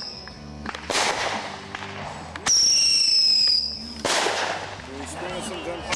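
Whistling fireworks going off in turn: a piercing whistle, sliding slightly down in pitch for about a second, each followed by a loud burst that fades out. The bursts come about a second in and about four seconds in, and a new whistle starts near the end.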